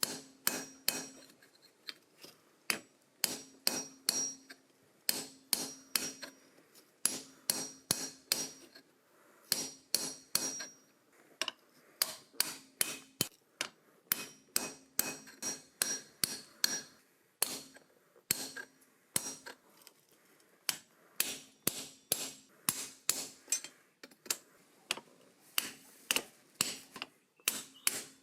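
Hand hammer striking steel on an anvil, in quick runs of several blows with short pauses between, each blow followed by a brief metallic ring.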